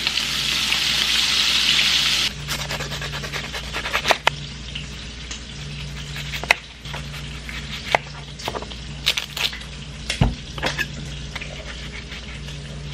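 Diced bacon sizzling loudly in a frying pan as it is stirred. About two seconds in, this gives way to a knife cutting an onion on a wooden cutting board: sharp, irregular knocks over a fainter hiss and a low hum.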